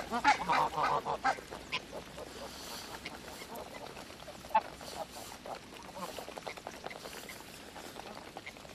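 Flock of greylag geese calling: a dense run of honks in the first couple of seconds, then scattered calls, with one sharp click about halfway through.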